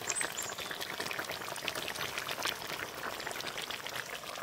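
Pot of fish curry in mustard-paste gravy boiling: a dense, steady patter of small bubbling pops and crackles.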